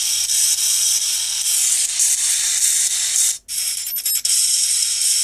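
Music played at full volume through a SciPhone iPhone 3G clone's tiny loudspeaker, sounding tinny and harsh with almost no bass, which shows how poor the speaker is. It cuts out for a moment about three and a half seconds in as the next track starts.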